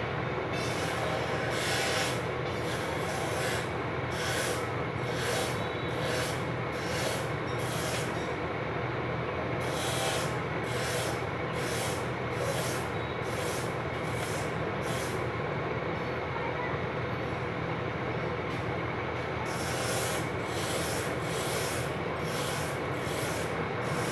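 Rhythmic rasping strokes, about two a second, in three runs of several seconds with short pauses between, over a steady low mechanical drone.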